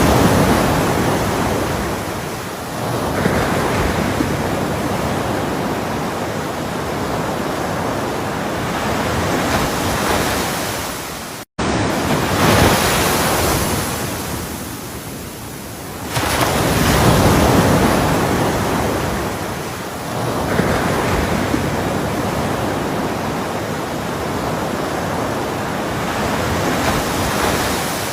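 Ocean waves breaking and washing up the shore in repeated surges, each swelling and then ebbing away. The sound cuts out completely for a split second about eleven and a half seconds in, at an edit in the recording.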